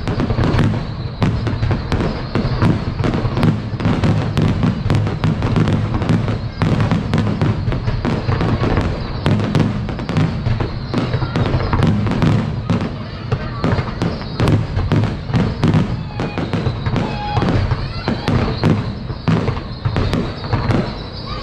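Fireworks display: a continuous rapid barrage of bangs and crackles with a steady low rumble, several bursts a second and no gaps.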